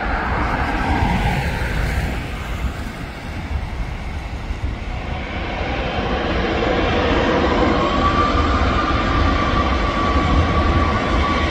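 Airliner's jet engines running, a broad roar with a steady high whine that comes in and grows louder through the second half.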